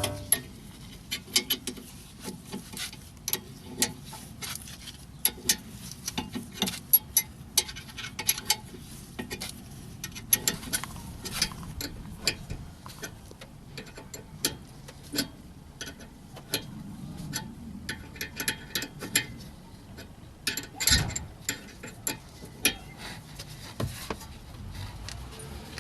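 Ratchet wrench clicking in irregular runs of quick ticks while the rear brake caliper's guide bolts are tightened, with tool and metal clinks.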